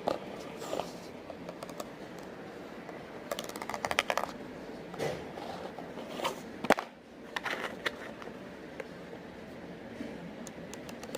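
Small plastic fidget-board toy being clicked in several short, quick runs of clicks, with pauses between them.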